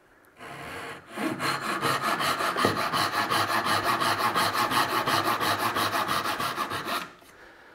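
Gyokucho dozuki, a fine-toothed Japanese dovetail saw with a stiffened spine, sawing dovetail cuts in maple and cutting on the pull stroke. One longer stroke starts it, then come quick, even strokes, several a second, stopping about seven seconds in.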